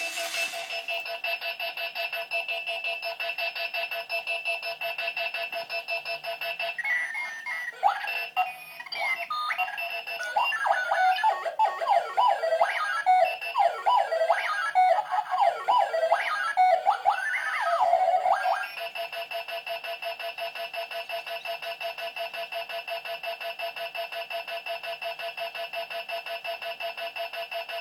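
Moving alarm clock going off: a rapid, steady pulsing electronic beep, which about seven seconds in turns into a warbling run of chirps jumping up and down in pitch, then returns to the same pulsing beep about nineteen seconds in.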